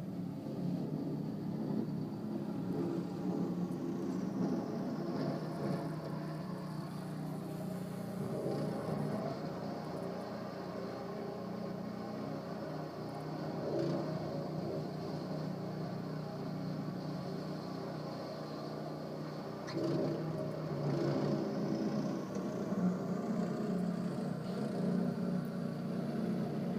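Snowblower engine running steadily, a low drone that swells a little several times.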